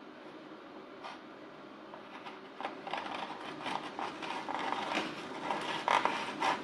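Close-miked eating sounds: irregular small clicks, scrapes and rustles of sushi being handled with utensils and eaten. They start about two and a half seconds in, after a quiet start.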